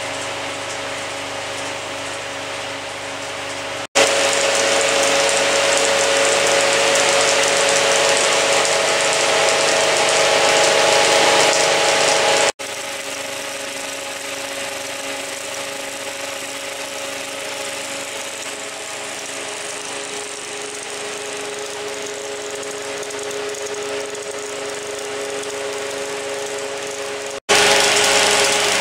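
A mechanical Nipkow-disk telecine running: a 16mm film projector and the motor-driven scanning disk make a steady mechanical whir with a faint steady tone. The whir is louder from about 4 to 12 seconds in and again near the end.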